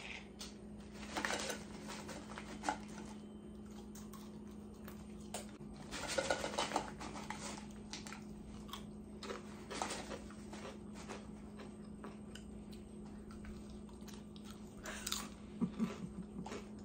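A person crunching and chewing Doritos Minis tortilla chips, in several crackly bursts a few seconds apart, over a steady low hum.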